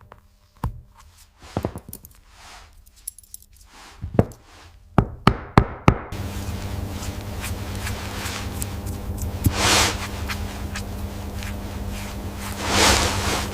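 Small metallic clinks and knocks, several in quick succession around five seconds in, then about six seconds in a steady machine hum starts and runs on with two louder swells.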